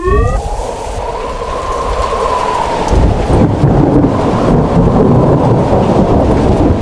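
Storm sound effect: steady heavy rain with rolling thunder, the deep rumble growing stronger about three seconds in. A short rising whoosh opens it.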